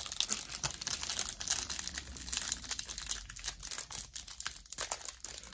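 Clear plastic wrapper of a trading card pack crinkling and crackling in quick, irregular bursts as it is handled and opened by hand.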